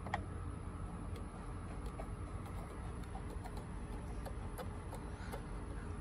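Faint, irregular light ticks and clicks of hand work at a steering column hub as the steering wheel bolt is threaded in by hand, over a steady low hum.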